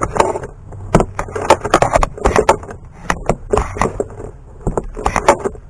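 Metal tools and parts clinking and knocking in an engine bay, a quick irregular series of clicks and taps.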